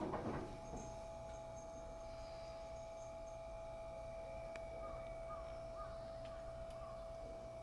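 A short, harsh animal call right at the start, over a steady, unchanging tone that runs on underneath, with faint high chirps above it.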